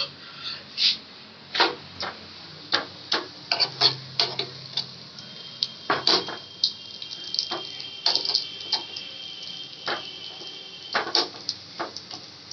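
Egg paratha frying on a flat tawa and being pressed and turned with a spatula: many irregular sharp clicks and taps. A faint steady high whine runs through the middle.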